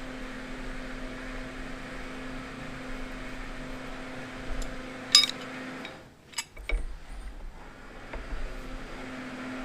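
Metal tools clinking on a tractor hydraulic coupler as it is refitted: one sharp ringing clink about five seconds in, then a few lighter knocks a second later. A steady low hum runs under it, breaks off around the knocks and comes back near the end.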